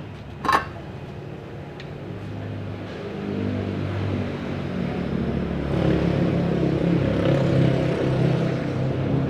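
A single sharp knock about half a second in, then a motor vehicle engine running and growing steadily louder over several seconds.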